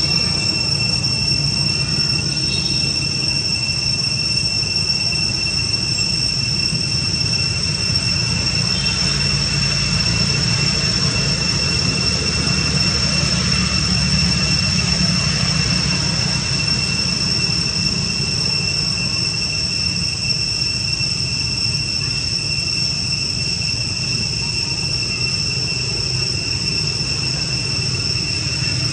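A steady high-pitched whine that holds one pitch without a break, over a continuous low rumble.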